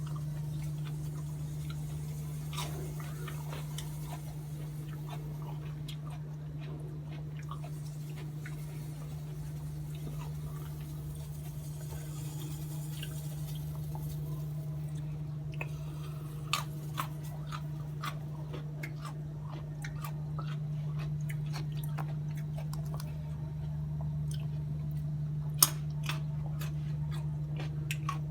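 A steady low hum with scattered light clicks and crackles, and a few sharper clicks past the middle and one near the end.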